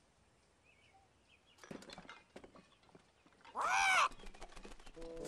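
Cartoon bird's squawk: one loud, wavering call about half a second long, nearly four seconds in, with faint clicks and rustles before and after it.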